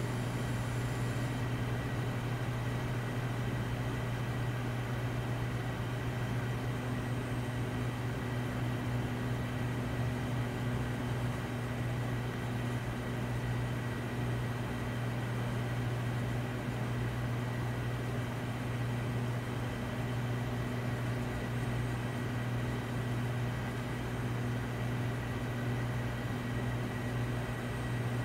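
Steady low mechanical hum with a few constant tones over a faint hiss, unchanging throughout.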